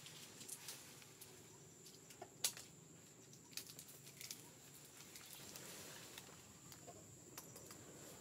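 Faint outdoor ambience: a steady high-pitched insect trill with scattered light clicks and taps, the sharpest about two and a half seconds in.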